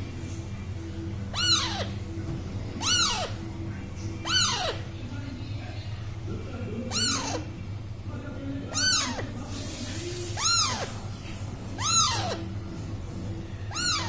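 Alexandrine parakeets calling during beak-to-beak feeding of a chick: a short squawk that rises then falls in pitch, repeated about eight times, roughly every one and a half seconds. Faint music and a low hum sit underneath.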